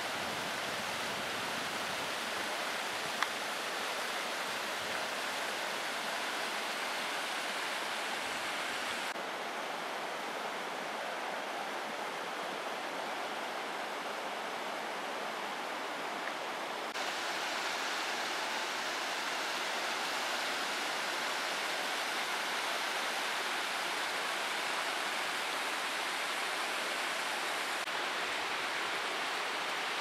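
Fast-flowing river water rushing in a steady, even hiss. The level drops slightly about nine seconds in and rises again a little after seventeen seconds, with one short click about three seconds in.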